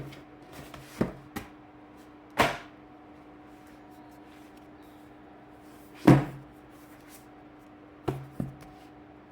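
A paperback book and its packaging being handled: a series of separate knocks and thuds, the loudest about two and a half seconds and six seconds in, over a faint steady hum.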